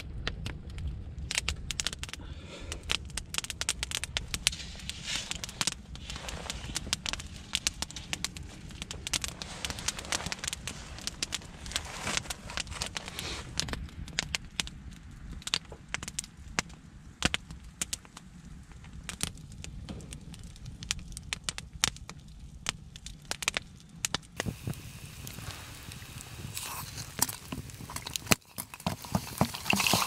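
Wood campfire of small sticks crackling and popping, with frequent sharp irregular snaps over a low steady rumble of the flames.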